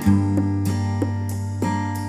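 Instrumental music: acoustic guitar notes plucked and strummed over a deep, held bass note that comes in right at the start.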